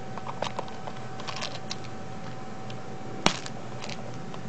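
Small hinged plastic pellet box being handled: a few light clicks and rattles, then one sharp plastic snap a little over three seconds in as the lid is shut.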